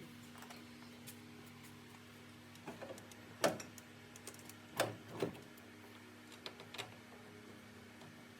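Scattered knocks and clicks of parts and hand tools being handled, the loudest about three and a half and five seconds in, over a steady low electrical hum.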